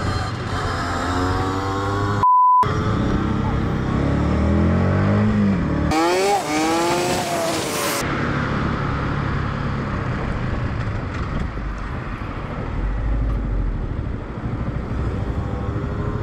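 Raised voices cut by a short steady censor bleep about two seconds in. From about eight seconds on, a steady vehicle engine and road noise.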